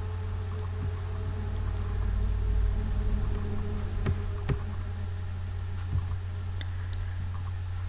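Steady low background hum with a few faint clicks of a computer mouse, two close together about four seconds in and one near six seconds, as a text box is dragged wider.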